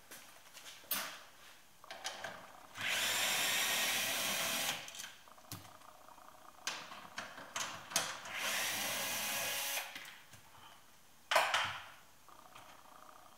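Cordless drill/driver run in two bursts, about two seconds and then about a second and a half, backing out the handbrake's 13 mm mounting bolts. Short clicks and knocks of tool and metal handling come between the runs.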